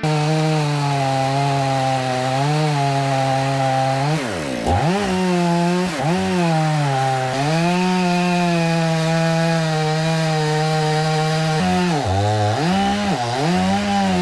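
Two-stroke chainsaw running at high revs while cutting wood, its engine pitch dropping sharply and recovering several times as the chain bogs down under load in the cut.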